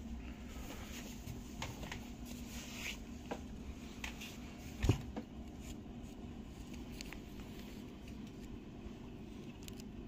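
A faint steady low hum with scattered light clicks and taps, and one sharper knock about five seconds in.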